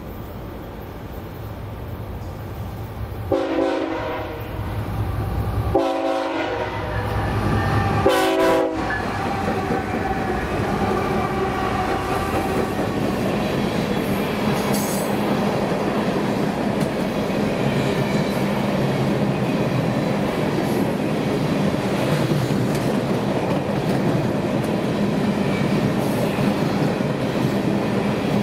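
Freight train air horn sounding three blasts, the first the longest, as the diesel locomotive approaches. The train then passes and its cars roll by with a steady rumble of wheels on rail.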